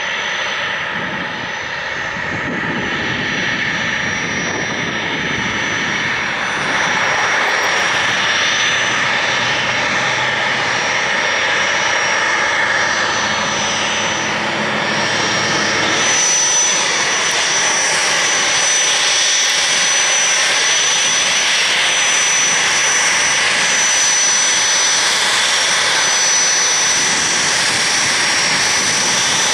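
Business-jet turbofan engines running at taxi power: a steady jet whine with a thin high tone over it. The sound changes abruptly about halfway through to a brighter, steadier whine.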